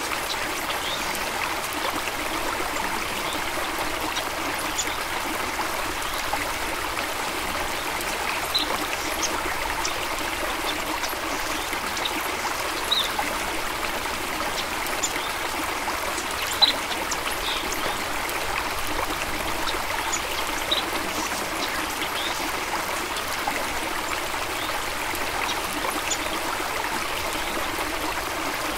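Stream running and trickling steadily, with brief high plinks of water here and there.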